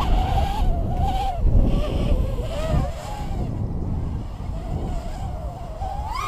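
Tyrant S drone's propellers whining overhead, the pitch wavering up and down with the throttle, then rising and dropping near the end. Wind rumbles on the microphone underneath.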